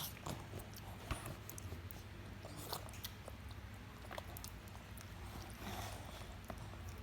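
A young child eating rice: faint chewing and mouth noises with scattered small clicks.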